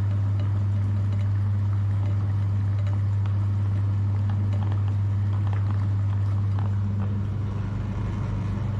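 Electric meat grinder motor running with a steady, loud low hum.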